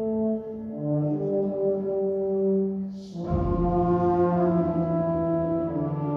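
Brass ensemble playing slow, held chords. The harmony moves about a second in, and again just after three seconds with a fresh, louder attack.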